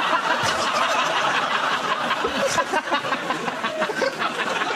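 Studio audience laughing, a dense, steady wave of many voices.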